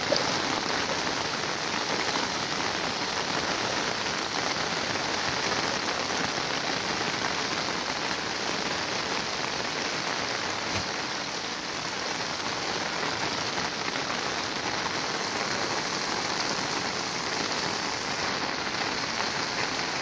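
Steady, even hiss of water in heavy flooding, with no distinct splashes or knocks.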